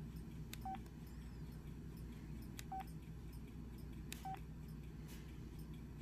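LG enV Touch phone giving three short single-pitch keypress beeps, each right after a faint tap, about two seconds apart, as it steps through its wallpapers. A steady low hum runs underneath.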